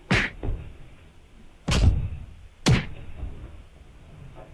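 A handful of sharp thuds and knocks, about four, the loudest a little under two seconds in. They come from a wooden stool being bumped as two cats swat and scuffle on and against it.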